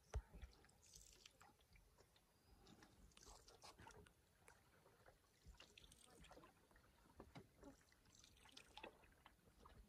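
Near silence, with faint scattered drips and small splashes from a canoe paddle in calm water. A brief click right at the start.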